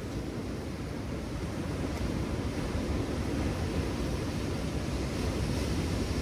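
Steady outdoor wind and ocean surf noise: a low, even rumble with no distinct events, growing slightly louder toward the end.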